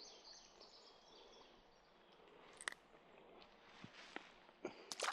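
Faint outdoor background hiss with a few short, sharp clicks and knocks, one about two and a half seconds in and several close together near the end.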